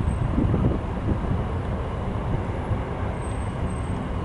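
Airbus A340-300's four CFM56 turbofans heard from below as the airliner passes overhead: a steady, deep rumble of jet noise.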